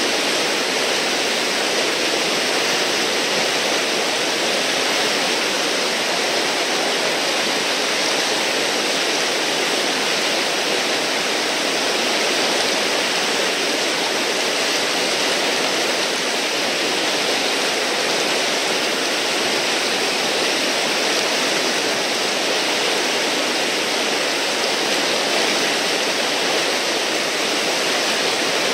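River whitewater: a large standing wave and surrounding rapids rushing steadily, with no breaks.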